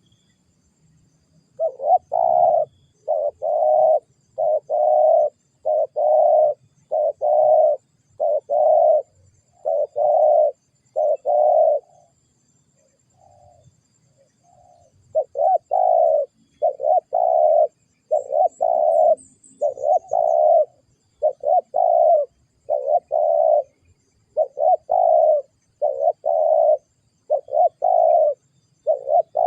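Spotted dove (tekukur) cooing, a steady series of short coo notes about one every three-quarters of a second, with a pause of a few seconds about halfway through before the cooing resumes.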